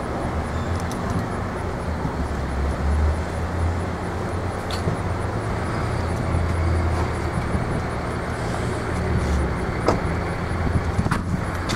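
Diesel engine of a hi-rail utility truck idling steadily with a low hum, with a few short knocks about 5, 10 and 11 seconds in.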